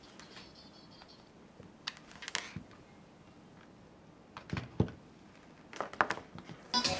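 A few scattered sharp clicks and knocks, like small objects being handled, then acoustic guitar music starts near the end.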